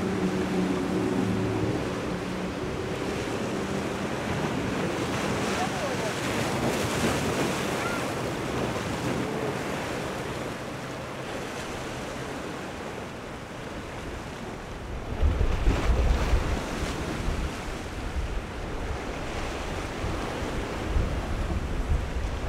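Waves breaking and surf rushing, with wind buffeting the microphone and boat engines running through the inlet. An engine's steady hum fades out in the first few seconds, and from about the middle on heavy wind rumble on the microphone grows loud.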